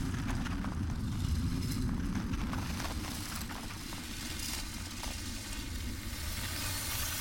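Soundtrack effect: a steady low rumble with many scattered faint crackles over a hiss.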